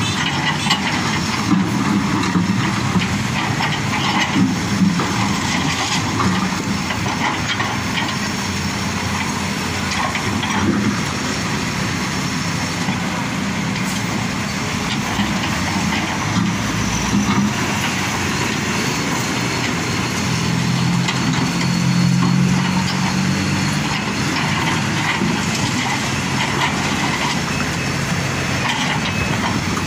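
Hitachi ZAXIS 210F excavator's diesel engine running under hydraulic load as its bucket pulls large rocks from a steel dump-truck bed, with scraping and knocks of stone on metal. The engine note rises and grows louder for a few seconds about two-thirds of the way through.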